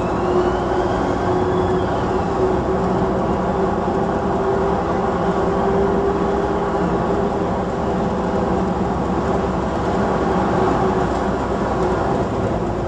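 AEC Regent III RT double-decker bus running along a street, heard from the upper deck: the diesel engine and driveline give a steady drone with a steady whine. A distant emergency-vehicle siren wails faintly and fades out in the first couple of seconds.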